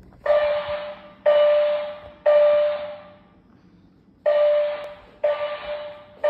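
Building fire alarm sounding its evacuation signal: loud buzzing horn blasts on one steady pitch in groups of three, about a second apart, with a pause of about a second after the first three before the next group begins.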